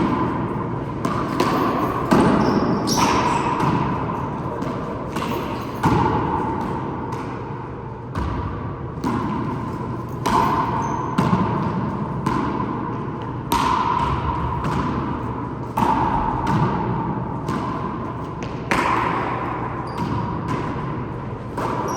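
Four-wall handball rally: the rubber ball is slapped by hands and smacks off the court walls and floor. The sharp impacts come every second or so, and each rings out in the enclosed court's echo.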